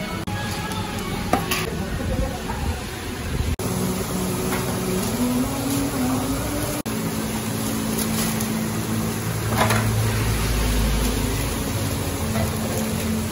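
Food-stall kitchen din: background voices and a steady low hum, with occasional clinks of metal trays and utensils.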